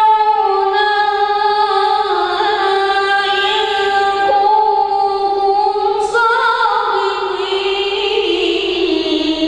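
A boy singing solo into a microphone, holding long, drawn-out notes with slow melodic turns and no other part heard. His voice jumps up about six seconds in, then slides down toward the end.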